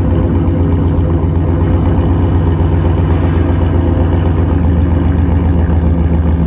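2013 Chevrolet Silverado's V8 idling with a stage 2 BTR cam, through a freshly installed muffler and a cat-deleted exhaust. It makes a steady, deep exhaust note at the tailpipe with a pulsing low end, and no revving.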